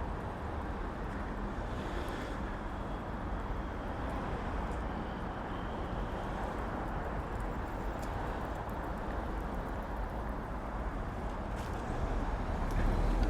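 Steady road-traffic rumble from passing and idling vehicles, growing a little louder near the end.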